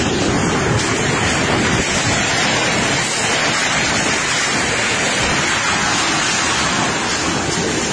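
Tornado wind and heavy rain rushing loudly and steadily, without a break.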